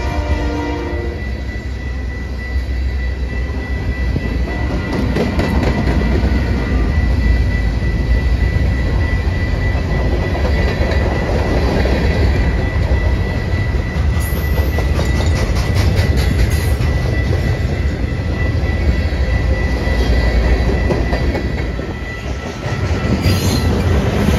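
Freight train passing: the locomotive horn trails off about a second in, then tank cars, boxcars and covered hoppers roll by with a steady low rumble and runs of wheel clicks over the rail joints. A thin steady high squeal from the wheels sits under it throughout.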